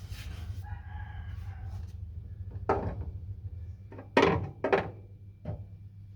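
A few sharp knocks against the car's bodywork, irregularly spaced, the loudest two about half a second apart near the middle. A steady low hum runs underneath.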